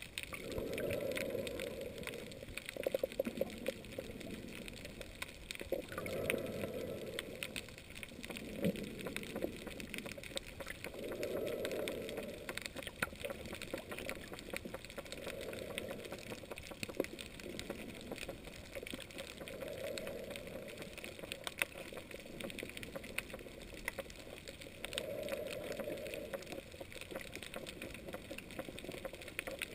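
Underwater ambience: a constant fine crackle with scattered sharper clicks, and a soft, muffled whooshing swell that comes and goes about every five seconds.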